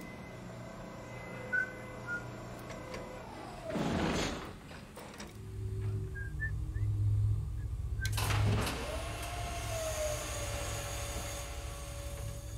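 Spaceship machinery sound effects: two whooshing, sweeping bursts about four and eight seconds in. A low mechanical hum comes in between them and runs on, and a steady tone glides down and holds after the second burst.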